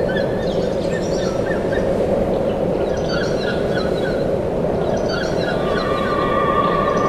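Birds calling in short, choppy squawks over a steady low noisy drone. A held steady tone comes in about five seconds in.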